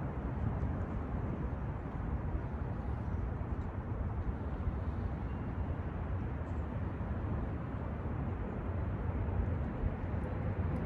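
Wind buffeting the microphone: a steady low rumble that wavers slightly in strength, with a faint hiss above it.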